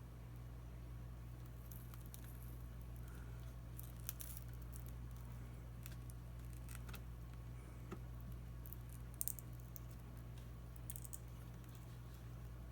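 Faint scattered clicks, ticks and crinkling from plastic pry tools and picks working under the tablet's taped, shattered touchscreen glass to separate it from the frame, with a sharp double tick about nine seconds in, over a steady low hum.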